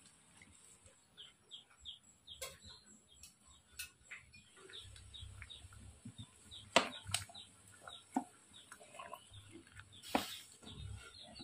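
Small birds chirping on and off, with a few sharp cracks, the loudest about seven and ten seconds in, and a low rumble from about halfway through.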